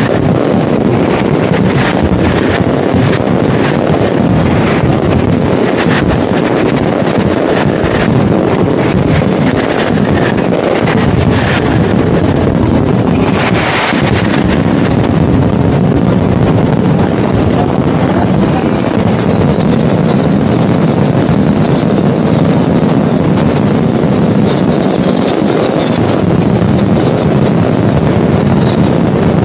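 Fireworks going off in a dense, continuous barrage: a loud unbroken roar of booms and crackles, with many sharp reports in the first half and one big burst about halfway through. High whistling glides come through in the second half.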